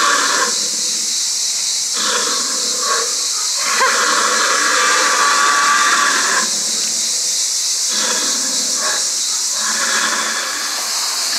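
Animatronic dinosaur's sound effects from a loudspeaker, growls and hisses that break off abruptly twice, over the steady high hiss of cicadas.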